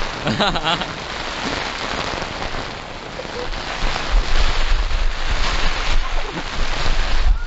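Heavy rain pouring steadily. From about four seconds in, wind buffets the microphone as a low, gusting rumble. A short vocal sound comes just after the start.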